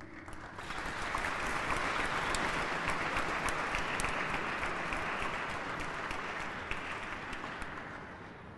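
Audience applauding, building up within the first second and slowly dying away near the end.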